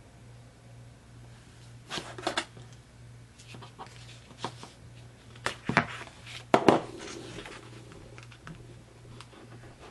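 Scrapbooking handling sounds: a pen-like piercing tool, ruler and cardstock on a cutting mat making a scatter of sharp clicks and taps, the loudest pair about six and a half seconds in, followed by a short rustle of paper. A low steady hum runs underneath.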